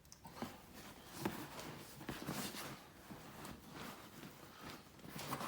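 Soft handling noises: rustling with a few scattered light taps and clicks, from working the rubber mask and wig by hand.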